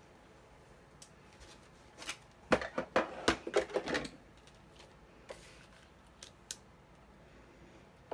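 A quick flurry of sharp plastic clicks and clatters for about two seconds as the Sizzix die-cutting machine and its plates are handled, followed by a few single light clicks.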